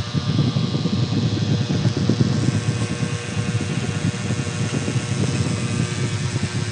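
RAKK DIWA mechanical keyboard with Outemu switches typed on very fast, the keystrokes running together into a dense, continuous clatter.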